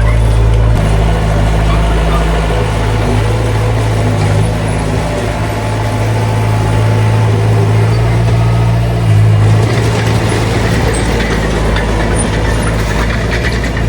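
Heavy diesel engine of tracked earthmoving machinery running steadily with a low hum. It surges briefly about nine seconds in, and more metallic rattle comes in after that.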